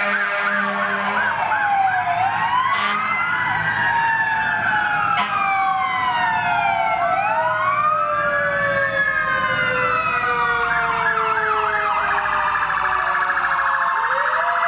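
Several fire truck sirens sounding at once as fire engines drive past, slow rising-and-falling wails overlapping one another. A fast yelp joins them near the start and again near the end.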